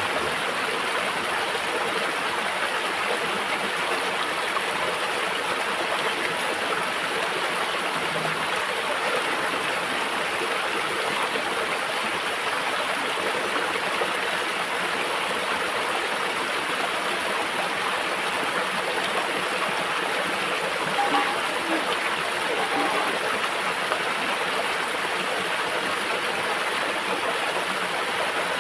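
Shallow stream running steadily over rocks, a constant rushing of water.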